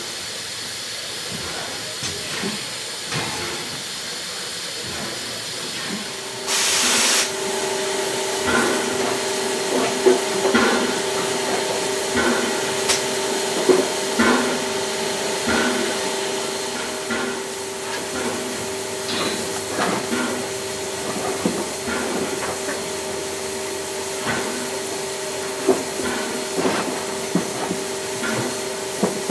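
Steam locomotives standing in steam: a steady hiss of escaping steam, broken about six seconds in by a short, loud rush of noise. After that, a steady hum with irregular knocks scattered through it.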